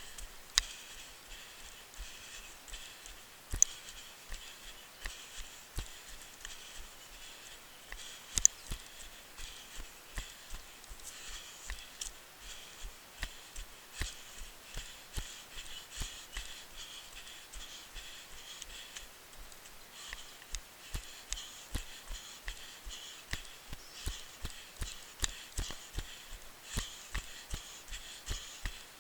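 Running footsteps on a trail, a regular thud close to three a second, with a couple of sharper knocks along the way.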